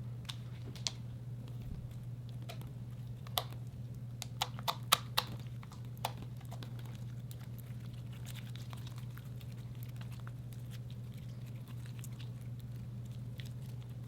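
Slime being worked by hand, giving scattered sticky clicks and small pops, with a cluster of sharper ones between about three and six seconds in. A steady low hum runs underneath.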